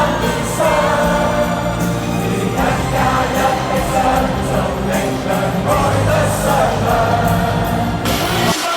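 Live concert music: a song sung by many voices together over a steady, bass-heavy backing. It cuts off abruptly just before the end.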